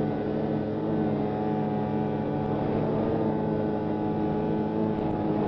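Snowmobile engine running steadily under way across snow, holding a fairly even pitch.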